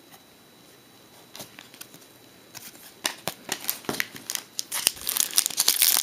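Foil trading-card pack wrapper crinkling and tearing as it is opened by hand. A dense run of crackles starts about two and a half seconds in and grows louder.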